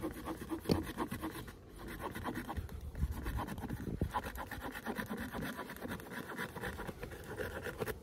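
Leatherman Surge multitool's coarse-toothed saw blade cutting through a small wet stick, in steady back-and-forth strokes.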